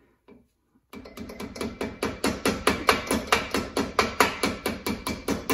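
Hammer tapping rapidly and lightly on a pin to drive it through a hole in a wheel hub's spindle, about six even taps a second, starting about a second in.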